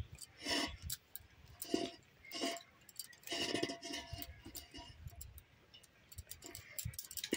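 A serving spoon scraping and clinking against a pot as cooked rice is spooned on as the next layer of a dum biryani: a string of separate short scrapes and taps, some with a brief ring.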